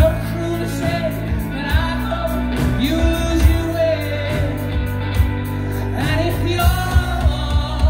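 Live rock band playing: electric guitars, bass guitar and drum kit, with a male voice holding long sung notes without clear words. The drum hits come harder and more often near the end.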